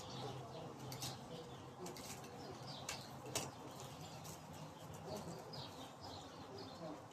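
Several songbirds chirping and calling, with a few sharp clicks in between, the loudest about three and a half seconds in.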